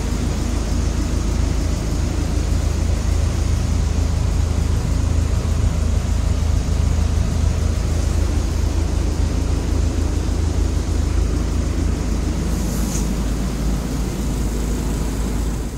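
City bus engine running steadily, a constant low drone heard from inside the bus.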